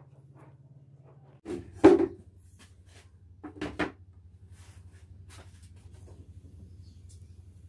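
Knocks and clatter of drawing tools, a ruler and a compass, being put down and picked up on a wooden worktable: a loud cluster about two seconds in and a quieter second cluster just before four seconds.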